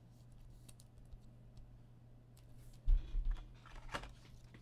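Light clicks and rustles of trading cards being handled at a table, with one low thump about three seconds in, over a faint steady hum.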